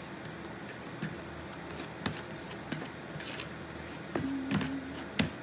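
A fork stirring and squishing a crumbly flour-and-sugar mix in a bowl, with scattered soft scrapes and light clicks of the fork against the bowl. A brief low tone comes about four seconds in.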